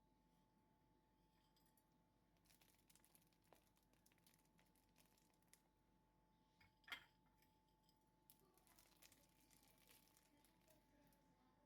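Near silence, with faint crackling in two patches and one soft click about seven seconds in.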